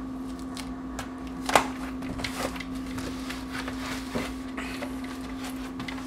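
Hands pressing and smoothing tape and foam insulation board around a window air conditioner: scattered light taps and rustles, with one sharper tap about a second and a half in, over a steady low hum.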